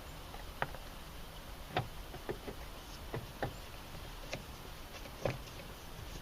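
Scattered light clicks and knocks, about seven at uneven intervals, from a screwdriver and the plastic door trim as the big screw in the interior door handle is driven in.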